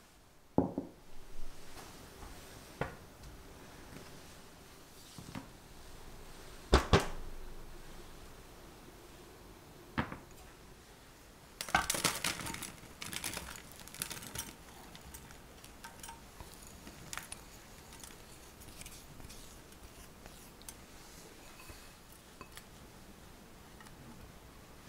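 A few sharp clinks and knocks of glass and ceramic kitchenware being handled on the worktop, the loudest about seven seconds in. About twelve seconds in, buttered graham-cookie crumbs pour with a dense pattering rustle into a rectangular stainless-steel cake frame, followed by faint scraping and ticks as a silicone spatula spreads and presses them.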